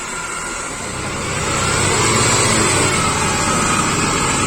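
Off-road 4x4 jeep engine running, getting louder about a second in and then holding steady.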